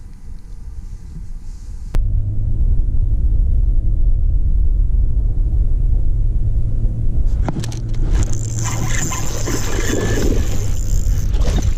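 Steady low rumble on the microphone. From about halfway through, a spinning reel is cranked and a dense crackling, splashy noise with short ticks comes in over it.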